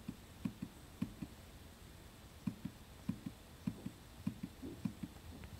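Surface Laptop Studio's haptic touchpad clicking under a fingertip: a vibration under the pad, not a moving pad, gives each press and release as a short, low double click. A few clicks at the 100% haptic strength setting, then after a pause about five at 75%.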